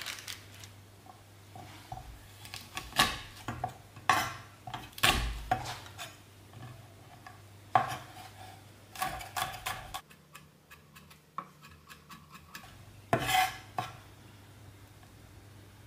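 Chef's knife knocking on a wooden cutting board in irregular single cuts as pok choy and garlic cloves are sliced and chopped, over a faint steady hum.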